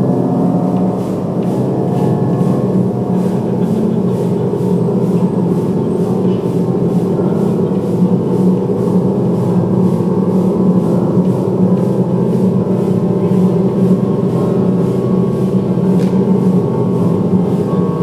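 A loud, steady, gong-like drone made of many held low tones layered together, keeping on without a break.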